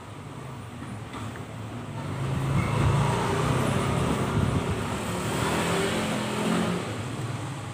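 A motor vehicle's engine passing by, growing louder over a couple of seconds, holding, then fading away.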